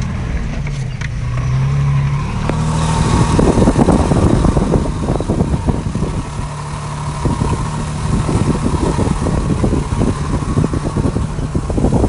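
Toyota FJ Cruiser's 4.0-litre V6 running steadily at low speed, with a dense, irregular rustling and crackling from about three seconds in as tall grass brushes against the side of the truck.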